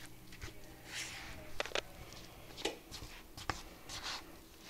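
Stirring flour into thick brownie batter in a mixing bowl: soft scraping, with a few sharp clicks of the utensil against the bowl.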